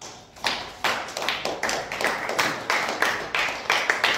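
A small audience clapping: many overlapping hand claps start about half a second in and keep up unevenly.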